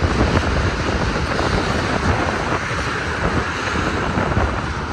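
Strong gusty wind buffeting the microphone over the rumble of a passing freight train.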